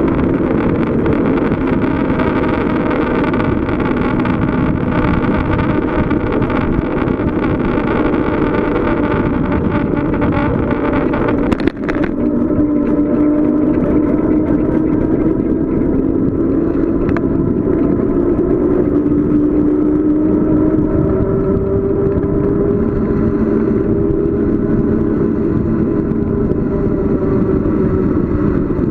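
Wind rushing over the microphone and road noise of a bicycle coasting fast downhill, with a steady hum whose pitch slowly rises in the second half. A single sharp knock comes about twelve seconds in.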